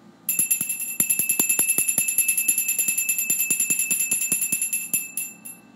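Altar bell shaken in fast, even strokes, about nine a second, then stopping near the end and ringing out briefly. This is the bell rung at the elevation of the chalice after the consecration at Mass.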